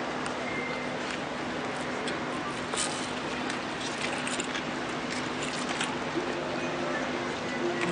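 Steady hubbub of a large crowd gathered outdoors, over a faint steady hum, with a few sharp brief clicks scattered through it.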